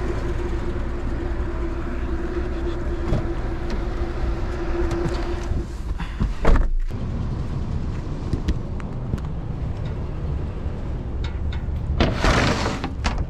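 Steady low rumble of a car engine idling. There is one sharp thump about six and a half seconds in, and a burst of rustling and scraping near the end.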